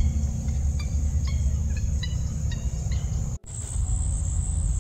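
Outdoor field ambience of a steady, high-pitched insect chorus over a low rumble, with short chirps repeating about twice a second. About three and a half seconds in, the sound cuts out for an instant and the insect buzz returns louder without the chirps.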